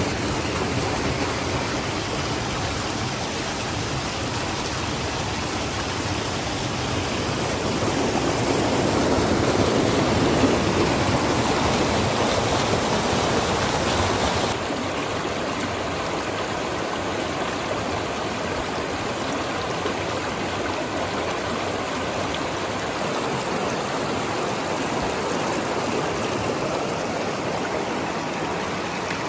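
Fast, shallow mountain creek rushing over rocks: a steady wash of running water. It swells louder for several seconds in the middle, then drops suddenly about halfway through.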